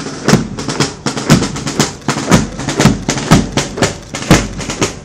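A marching column's boots striking the pavement in unison, about two steps a second, in a steady rhythm of sharp stamps with a heavier thump on every other step.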